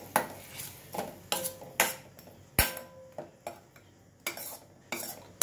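A metal spoon stirring and scraping in a small stainless steel pan of chopped tomatoes, herbs and ground spices, with irregular clinks and taps of the spoon against the pan, about eight or nine in all.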